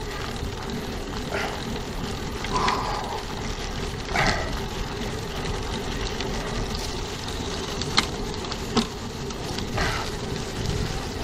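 Steady wind and tyre noise on a bike-mounted camera's microphone as a bicycle rolls along a paved road. A few brief sounds rise above it, including two sharp clicks late on.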